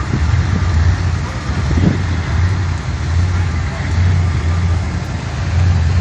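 An engine running steadily, with a low hum that pulses about once a second.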